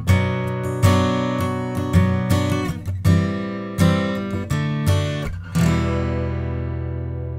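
Acoustic guitar strummed in chords, recorded through a Cranborne Camden EC1 microphone preamp. The strums come about once a second, and the last chord, a little over halfway through, is left to ring and slowly fade.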